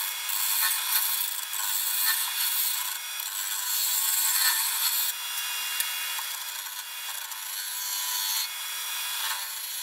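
A 5/8 bowl gouge cutting across the face of a spinning spalted beech bowl blank on a wood lathe, truing it flat: a steady scraping hiss as shavings peel off, rising and easing a little as the cut moves. A faint steady hum from the lathe runs underneath.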